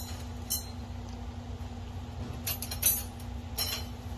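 Metal trap divider being pushed through the wire mesh of a cat trap: several sharp metallic clinks and rattles of wire on wire, one about half a second in and a cluster in the second half.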